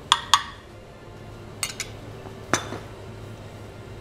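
Metal spoon clinking against a glass bowl and ceramic plate while relish is spooned out: five short, sharp clinks with a brief ring. There is a pair at the start, another pair about a second and a half in, and a single one a second after that, over a low steady hum.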